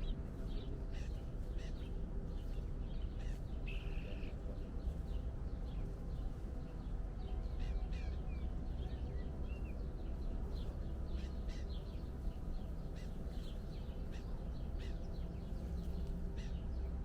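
Wild birds chirping and calling throughout in many short, high notes, with one harsher call about four seconds in, over a steady low rumble.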